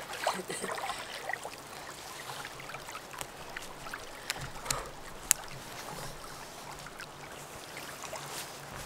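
Small splashes and trickling of river water around someone wading in, with a few short sharp ticks, the clearest about five seconds in.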